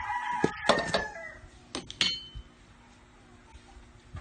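A rooster crowing, one long call in the first second or so, with a few sharp knocks or clicks during and after it.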